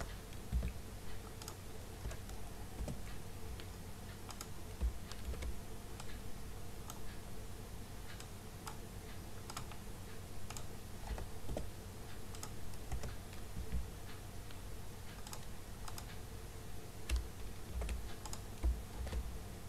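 Irregular computer-keyboard keystrokes and clicks as cells of a table are edited, over a steady low hum.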